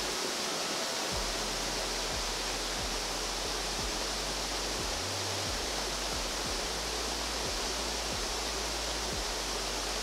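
Waterfall running, a steady even rush of falling water with no breaks.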